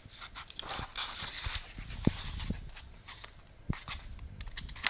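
Paper rustling and a string of irregular light taps and clicks as a paperback picture book is handled and a page is turned over.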